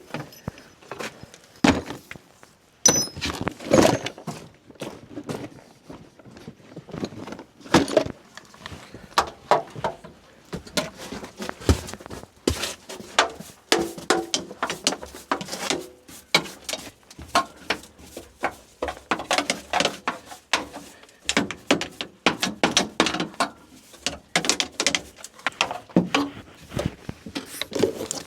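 An irregular series of knocks, clunks and light rattles, like hard objects being handled and set down, spaced unevenly throughout.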